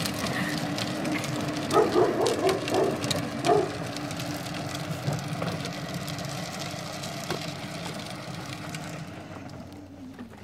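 Red Corvette Power Wheels ride-on toy car running on its electric motor, a steady whine and hum with its plastic wheels rolling on asphalt, fading as it drives away. A few brief louder sounds come about two to three and a half seconds in.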